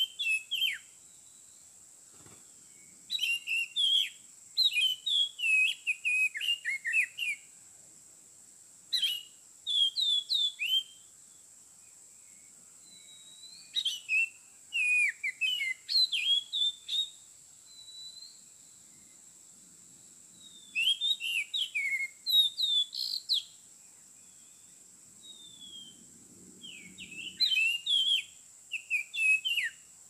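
Oriental magpie-robin singing: spells of varied, sweet whistled phrases a few seconds long, about six of them, with pauses in between. A steady high-pitched whine runs underneath.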